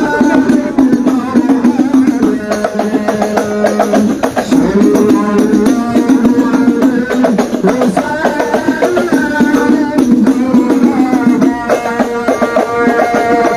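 Music with drums and hand percussion and singing, running steadily under the noise of a crowd.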